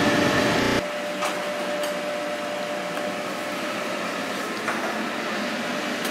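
A steady fan-like hum that drops abruptly about a second in to a quieter hum, with a few light metal clicks as an oven rack is pulled out and the food on it is handled with metal tongs.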